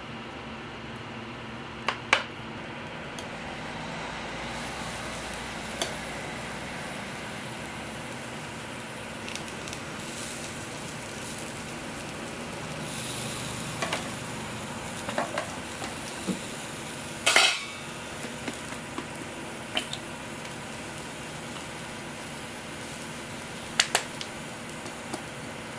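Stainless-steel kitchen tongs clicking and clacking against a steel flat-top griddle while toppings are laid on toast, over a steady background hiss. The clicks are scattered, with a cluster about two-thirds of the way through that holds the loudest clack, and a double click near the end.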